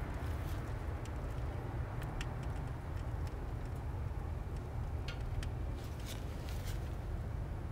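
Steady low outdoor rumble and hiss, with a few faint high ticks scattered through it.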